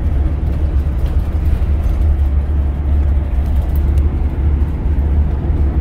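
Steady low rumble of engine and road noise inside the cab of a Chevy-chassis Coachmen Freelander Class C motorhome under way.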